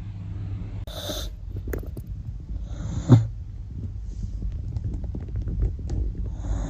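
Corgi snoring loudly in its sleep: a steady low rumble with breathy snores about every two to three seconds, and one sharp, loud snort about three seconds in.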